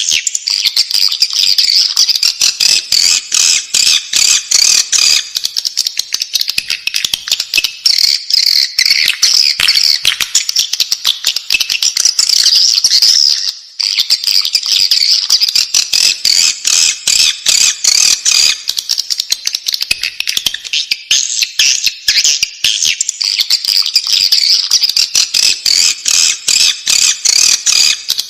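Swiftlet chicks calling in the nest: a dense, continuous chatter of rapid, high chirps, with a brief break about halfway through.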